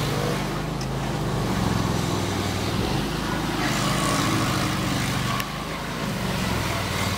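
Stump grinder's engine running steadily, a low drone.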